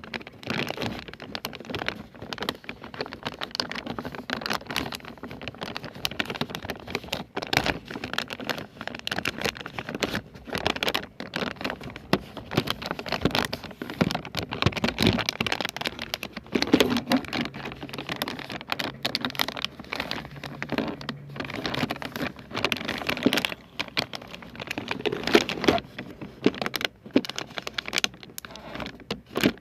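Close-miked ASMR trigger sounds: a dense, continuous run of small taps, clicks and crackling rustles, as of fingers tapping and scratching on objects.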